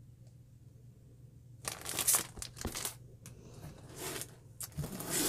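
Packaged cross-stitch kits crinkling and rustling as they are handled and swapped, in two spells about two seconds and four seconds in.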